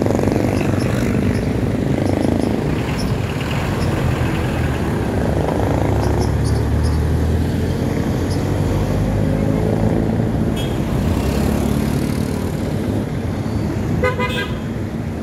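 A motor vehicle engine running steadily with road noise, and a short horn beep near the end.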